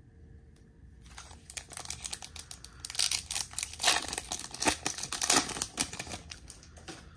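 Foil wrapper of a Topps 2022 Series 2 hobby baseball card pack crinkling and tearing as it is pulled open by hand: a dense run of crackles that starts about a second in and is loudest in the middle.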